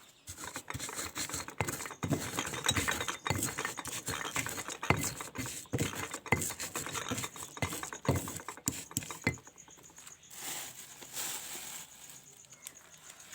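Rapid, irregular knocking and clinking of kitchen utensils as seasoning is worked, easing off about nine seconds in to a softer scraping hiss.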